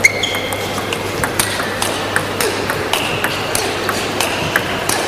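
Table tennis rally: the ball clicking off the bats and the table, about three or four hits a second, over the steady hum of a sports hall.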